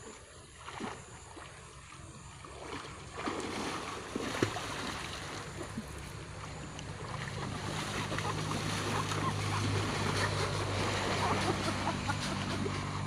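Water splashing and sloshing as people wade and swim through a pond, with a sharp knock about four seconds in. About halfway through, a steady low motor hum comes in and grows louder.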